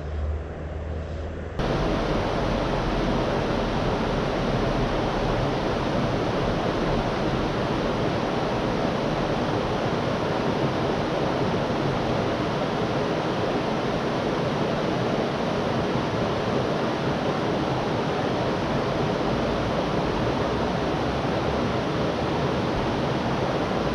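Steady rush of river water running over stones in a shallow riffle close to the microphone. It starts abruptly about a second and a half in, after a quieter low rumble.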